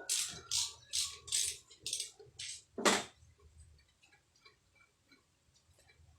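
Repeated short scraping or rasping strokes, about two a second, with one louder, fuller stroke about three seconds in, then only faint scattered sounds.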